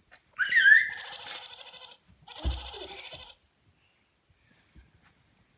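A child's short high squeal, then a toy robot gives a buzzy, warbling electronic tone twice, about a second each, with a soft thump at the start of the second one.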